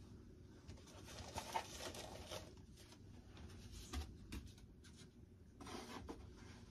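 Faint rustling and scraping of foam model parts and foam packaging being handled, with a soft bump about four seconds in.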